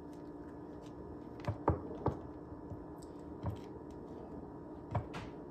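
Light, scattered taps and handling noises, about five, of hands rolling a collard green leaf wrap on a wooden cutting board, over a faint steady hum.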